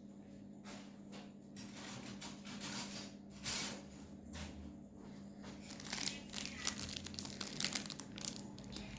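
Crinkling, rustling handling noise in irregular bursts as crushed rock sugar is scooped up for a garlic cough remedy, starting about a second and a half in, over a steady low hum.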